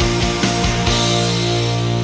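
Rock music with drums and electric guitar. About a second in the drums stop and a held chord rings on, starting to fade.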